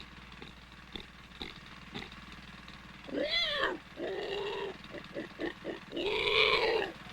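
Pig-like squealing cries and short grunts. About three seconds in comes one rising and falling squeal, then a quick run of choppy grunts, then a longer squeal near the end.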